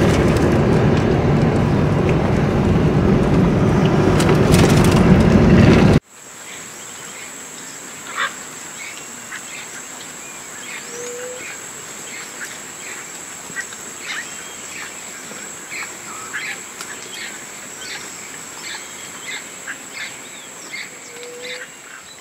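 For about six seconds, loud rushing noise from a moving vehicle, which cuts off abruptly. Then dusk riverside ambience: a steady high insect drone with many scattered bird calls, some of them duck-like quacks, and two short low rising calls.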